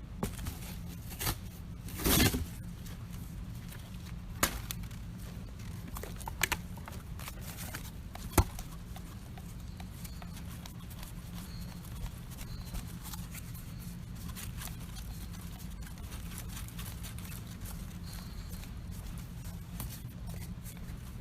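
Wood campfire crackling, with scattered sharp pops and snaps; the loudest is a short cluster of snaps about two seconds in, over a steady low background rumble.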